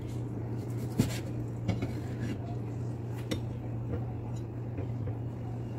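A cleaver chopping cooked meat on a plastic cutting board: a few separate knocks, the loudest about a second in, then a knife clinking against a plate, over a steady low hum.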